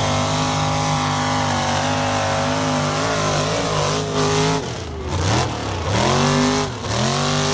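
Mud truck's engine at full throttle, pulling through a mud bog at high, steady revs. About four and a half seconds in the revs fall away, then climb again in a few sharp rev-ups.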